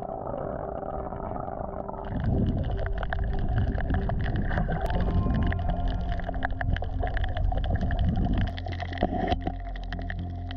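Underwater sound picked up by a submerged camera: muffled water movement and low rumble. From about two seconds in it turns louder, with many sharp clicks and crackles.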